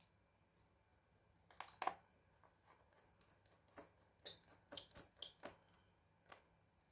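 Small hard parts of a laptop being handled: a quick cluster of clicks about a second and a half in, then a dense run of short, sharp clicks and scrapes for a couple of seconds before stopping.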